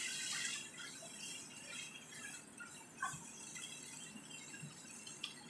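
Shredded chicken sizzling faintly in a frying pan, with a few light clinks of a spatula and bowl. Chicken broth is poured into the pan in the second half as it is stirred.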